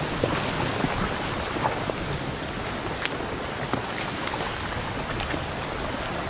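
Flash flood of thick, muddy, debris-laden water rushing down a desert wash: a steady rush with scattered sharp clicks.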